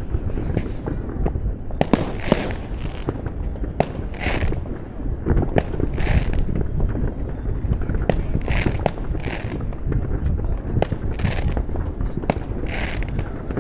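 New Year's Eve fireworks and firecrackers going off all around: sharp bangs every second or so over a continuous rumble of distant explosions, with short hissy bursts in between.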